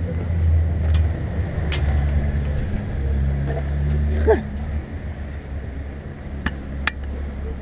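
Low, steady rumble of a motor vehicle engine running in the street, with a few short light clicks and knocks as a fallen bicycle is lifted and handled.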